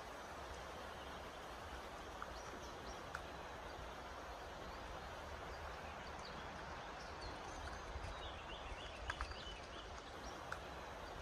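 Faint outdoor ambience while walking: a low steady rumble of wind on the microphone, a few soft footfalls, and small birds chirping faintly in the middle.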